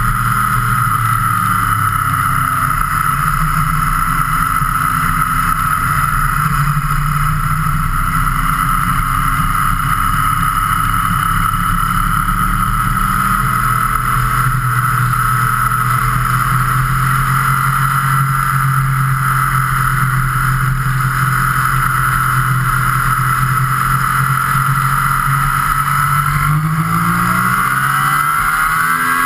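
Engine of a road vehicle heard from on board while it cruises at a steady speed, with constant road and wind noise. Near the end the revs climb steadily as it accelerates.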